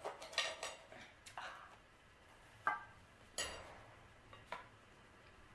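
Knife and fork clicking and scraping against a plate as a pizza is cut: about five sharp, scattered clicks with quiet between.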